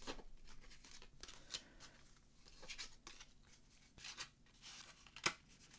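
Plastic backstage passes and card sleeves being handled and slid together: faint scattered rustling and light clacks, with one sharper click about five seconds in.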